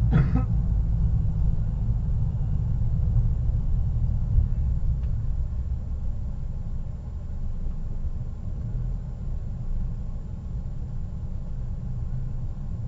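Steady low rumble of a car's engine and road noise, heard from a dashboard camera inside the moving car.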